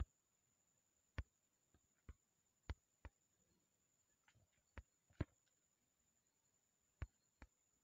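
About ten faint, sharp clicks at irregular spacing, with a pause of over a second near the end: taps of typing on a smartphone's on-screen keyboard.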